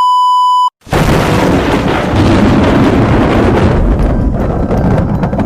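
A short electronic beep of about two-thirds of a second, then, after a brief gap, a loud, sustained rumbling noise with a heavy low end, like a blast or collapse sound effect.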